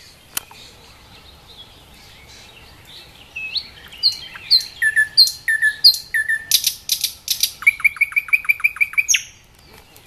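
A nightingale singing one song phrase after a few seconds' pause. It gives a run of loud, sharp, repeated whistled notes, then a fast, even rattle of about a dozen notes that stops suddenly.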